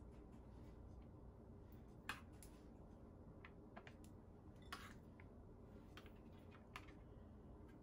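Faint, scattered clicks and taps of a spoon against a bowl and a metal baking pan while spooning cheese and sauce into a lasagna, over a low steady room hum.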